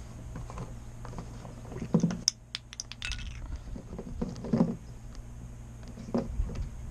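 A red plastic gas can being handled and its spout worked, with a few dull thumps and a quick run of light metallic clinks between two and three seconds in.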